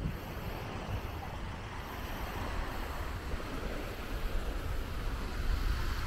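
Small waves washing up and sliding back on a sandy beach, a steady hiss that swells and ebbs. Wind buffets the microphone with a low rumble.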